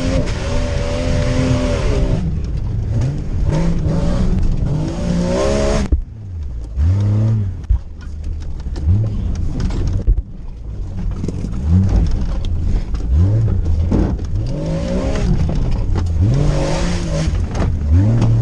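Jeep Grand Cherokee engine heard from inside the cabin while it is driven over an off-road course. The engine is held high with a loud hiss for about six seconds, then revved up and let fall back again and again in short bursts.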